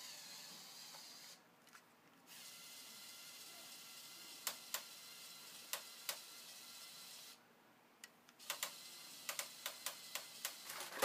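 Faint clicking of the LEGO Technic 42030 front loader's motor-driven boom and bucket mechanism, a few light clicks in the middle and a quicker run of them over the last few seconds, over a low hiss.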